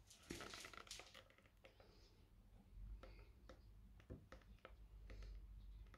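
Near silence with faint scattered clicks and taps from handling a metal paint can as black paint is poured into a plastic bin.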